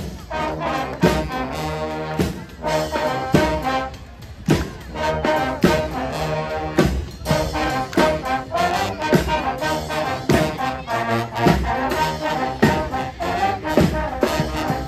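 Brass band playing live: trumpets, trombones and saxophones together over a steady beat. The band comes in with a loud hit at the very start.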